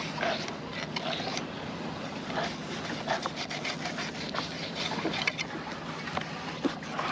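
Fillet knife cutting a fish fillet away from the skin, the blade scraping and rasping over tough skin and scales in short irregular strokes with small clicks.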